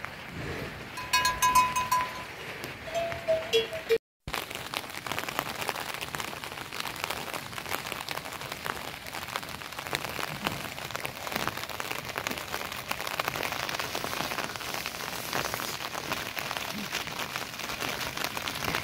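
Steady rain falling, a dense hiss with a fine patter of drops, which sets in after a brief cut in the sound about four seconds in. Before the cut, a few short clear tones sound.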